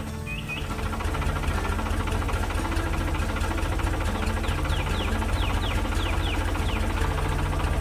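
Combine harvester engine sound effect running steadily with a fast low throb, its level dipping briefly just at the start. Short high chirps sound over it, several in quick succession about halfway through.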